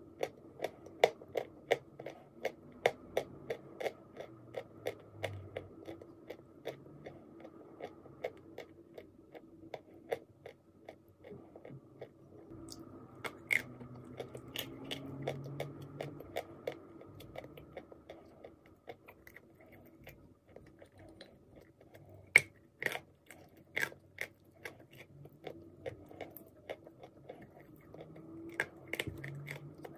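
Dry clay being chewed in close-up: rapid crisp crunches, about three a second at first, then sparser, with a few sharp, louder bites.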